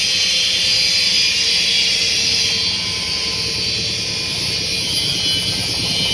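Engine of a corn sheller machine running steadily under a loud, even hiss.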